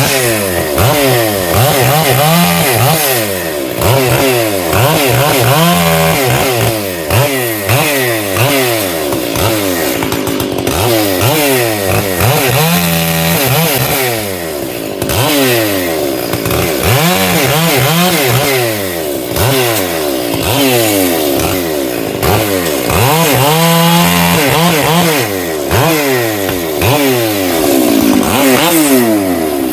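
Two-stroke chainsaw cutting firewood. The engine pitch rises and falls over and over as the throttle is opened and eased off.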